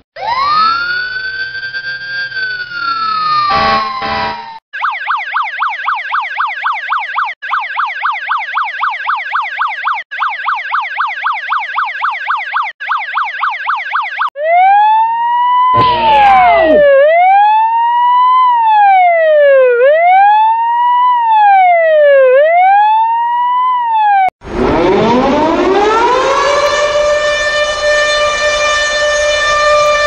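Emergency-vehicle sirens, Russian police and ambulance sirens among them, played one after another. First come a few seconds of overlapping gliding siren tones, then a fast electronic yelp at about four cycles a second. Next is a slower wail rising and falling about every two seconds, with a brief loud blast near its start, and near the end a siren that winds up and holds a steady tone.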